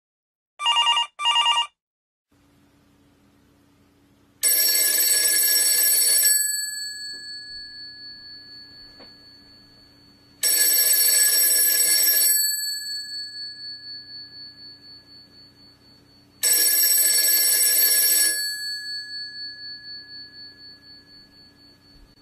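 Telephone ringing: a short double trill about a second in, then three long rings, each about two seconds long and six seconds apart, each trailing off in a slowly fading ring.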